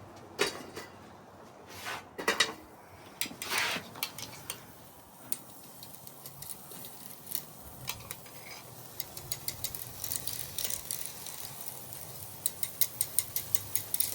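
Light metal clinks, knocks and scrapes as a wire fish grill basket is handled and flipped on a charcoal grill, with a quick run of small clicks near the end.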